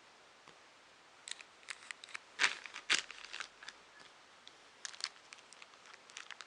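Crinkling of plastic packaging and light clicks as small kit parts are handled, with two louder rustles about two and a half and three seconds in.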